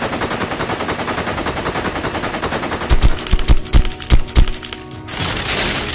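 Machine-gun sound effect: rapid even gunfire for about three seconds, followed by several loud, heavy hits and a short burst of hiss near the end.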